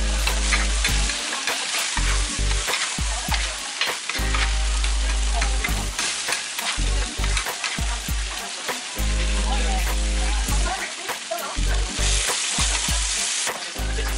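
Monjayaki batter and chopped cabbage sizzling on a hot teppan iron griddle, with small metal spatulas scraping and clicking against the plate many times. A low hum comes and goes underneath.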